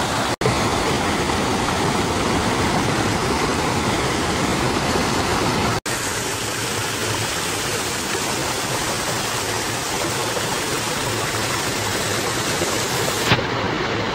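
A small mountain stream rushing over rocks, a steady even noise that cuts out for an instant twice and turns duller near the end.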